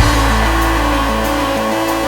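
Background electronic music with a heavy sustained bass and a stepping synth line.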